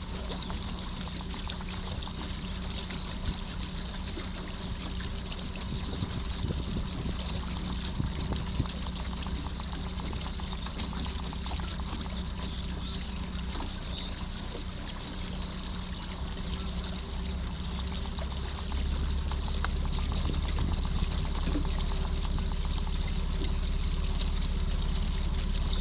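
Water trickling and splashing along a moving canoe's hull over the steady whine of a 24-volt electric trolling motor pushing the canoe. A low rumble gets louder about two-thirds of the way through.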